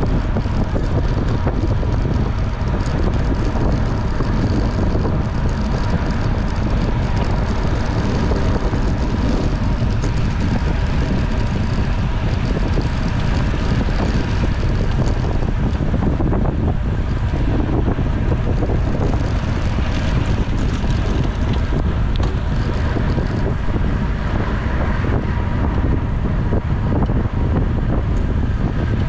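Steady wind noise buffeting a bike-mounted camera's microphone while riding at speed with a road-cycling group, with road and tyre noise underneath.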